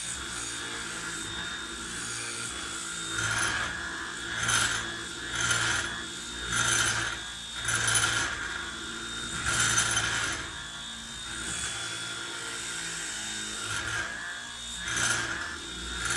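Cordless 18V random orbital sander running on its lowest speed with 240-grit paper on wood: a steady motor whine, with a rasping sanding noise that swells and fades about once a second as the pad is worked across the board, from about three seconds in to about eleven and again near the end.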